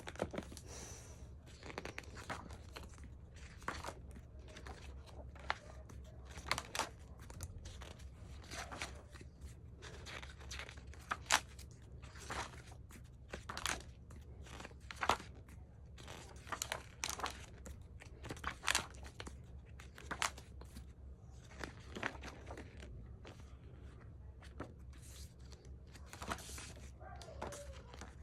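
Paper and plastic being handled as a photobook's glossy pages are turned and the packaging is moved: a string of short rustles and crinkles at irregular intervals, roughly one a second, over a faint low hum.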